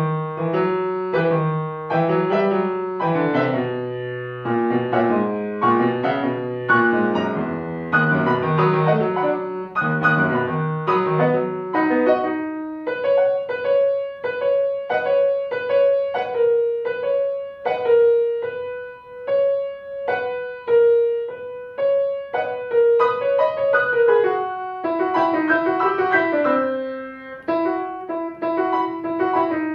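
Kawai grand piano played solo. A busy passage with a strong bass line gives way about 13 seconds in to lighter repeated chords over a middle-register melody, which dips lower near the end.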